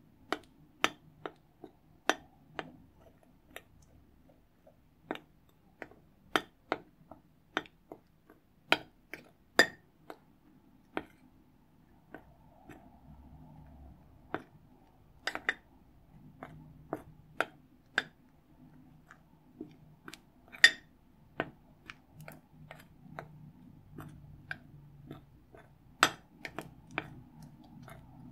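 Metal spoon clinking and scraping against a glass bowl as it stirs white powder into slime, in sharp, uneven ticks about once or twice a second.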